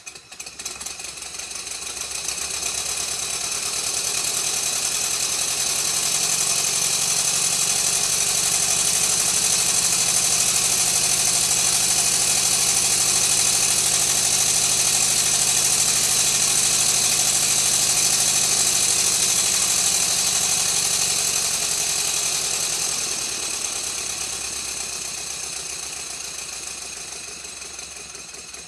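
Stuart Twin Victoria twin-cylinder horizontal model mill engine running fast and smoothly, with a rapid hiss of exhaust and a mechanical clatter. It builds up over the first few seconds, holds steady, and dies away over the last several seconds as the inlet tap is worked.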